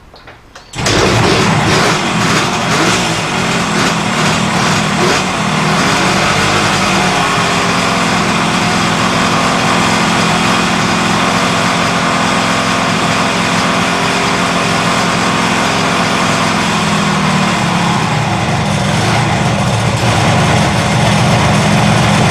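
Kawasaki S2 350 three-cylinder two-stroke engine catching about a second in on a cold start, then running steadily with its note shifting a little now and then. It is running on two cylinders, the middle cylinder not firing, as the owner finds.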